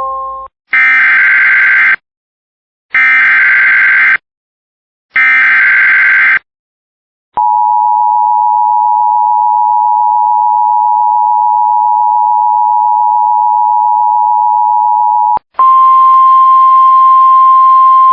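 Emergency Alert System header tones: three short, screechy digital data bursts, then the EAS two-tone attention signal held steady for about eight seconds. A louder, buzzier steady tone follows for about four seconds more. The last note of a chime fades out at the very start.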